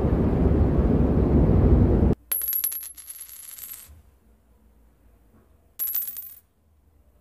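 A loud, low rumbling noise cuts off abruptly about two seconds in. Coins then drop and clink with a bright metallic ringing for about a second and a half. Near the end comes a second, shorter clatter of coins.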